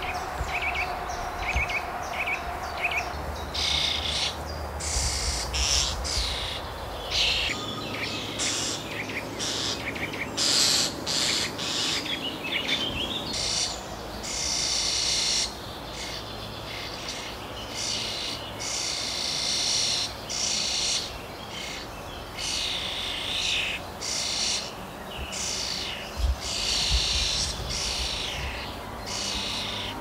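Songbirds singing: for the first few seconds, a run of short notes repeated evenly at about four a second, then bursts of high, rapid twittering song, each a second or two long with short gaps between them.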